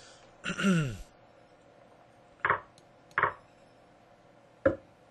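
Two short, sharp wooden knocks less than a second apart: an online chess program's piece-move sounds during a blitz game. A sharper single click follows near the end, and a brief falling voice-like sound comes about half a second in.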